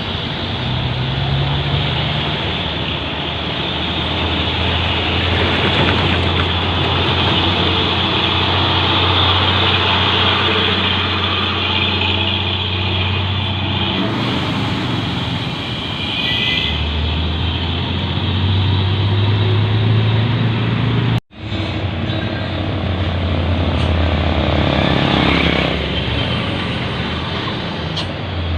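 Heavily loaded diesel trucks with their engines running hard under load: a loud, low engine drone that rises and falls in pitch, with a lot of mechanical noise. The sound drops out for an instant about two-thirds of the way through.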